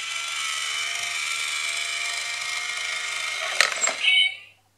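Itazura cat coin bank's small motor-driven mechanism whirring steadily for about three and a half seconds, then a few sharp clacks as the mechanism snaps shut, followed by a brief high sound.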